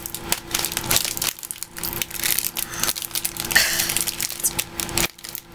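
Crinkling and crackling of a plastic snack wrapper being handled and worked open by hand, in quick irregular crackles, over a faint steady hum.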